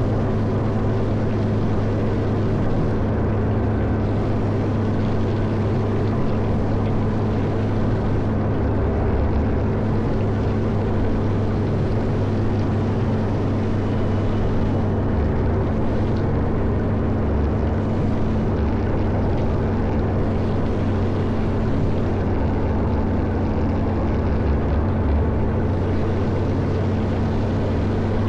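Caterpillar 140M motor grader's diesel engine running steadily, a constant low drone that holds the same pitch and level throughout.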